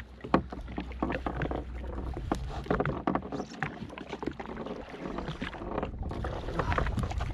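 Irregular knocks, clicks and rustling from handling a freshly caught fish on a jet ski, over a low steady rumble.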